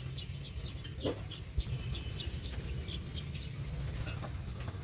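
Small birds chirping repeatedly over a low, steady background rumble, with a short knock about a second in and a low thump shortly after.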